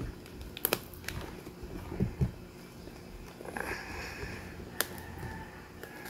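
Hands handling a cardboard Lego box. There are a few sharp clicks and taps, two dull thumps about two seconds in, and a stretch of scraping and rustling as fingers pick at the box's edge.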